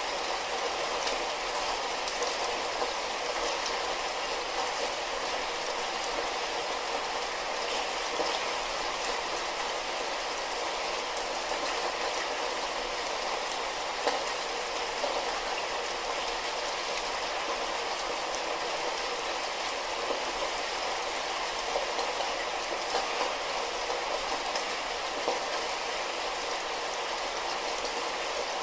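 Steady light rain falling, an even patter with a few sharper drops standing out now and then.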